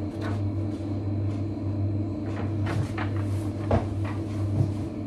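A few short knocks and rustles from a cardboard box and bingo cards being handled, over a steady low hum.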